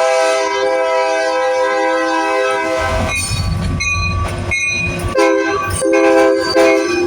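EMD SD70M locomotive's multi-chime air horn sounding one long blast of about three seconds. After a pause of about two seconds it gives a short blast and then a longer one, over the low rumble of the passing train.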